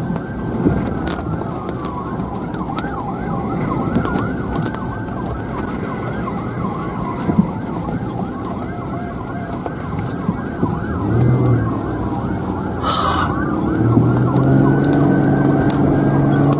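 Emergency vehicle sirens: one wails slowly up and down while others sweep in quick yelps over it, above the steady road noise of a moving car. A short sharp noise cuts in about 13 seconds in.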